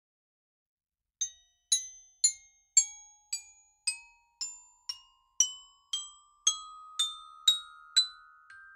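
Glockenspiel playing a slow rising scale, one struck note about every half second after about a second of silence; the notes ring on and overlap toward the end. It is the original source recording, heard directly rather than played back through a loudspeaker.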